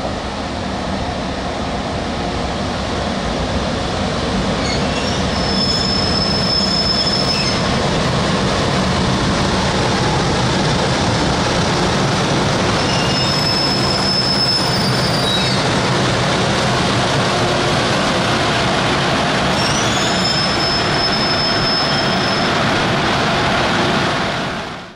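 JR Freight EH200 twin-unit electric locomotive hauling a Mani 50 luggage van slowly past at close range, with a loud, steady rumble. A high-pitched wheel squeal rises out of it three times. The sound cuts off suddenly near the end.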